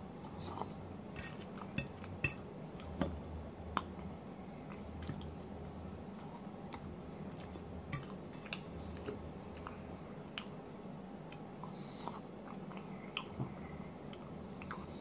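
A person chewing a mouthful of pulled-pork poutine close to the microphone. Short clicks are scattered throughout, from a metal fork tapping and scraping on the plate.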